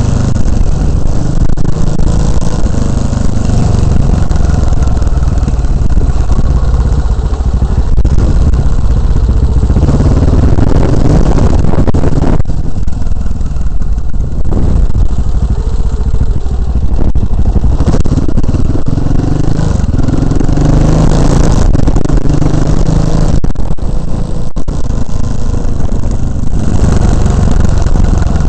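Motorcycle engine running loudly for an exhaust sound check, its revs rising and falling.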